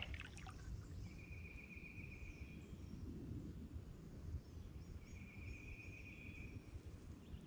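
Quiet swamp ambience with two matching buzzy calls from a wild animal, each about a second and a half long and about four seconds apart, over a faint low rumble; a few faint high chirps between them.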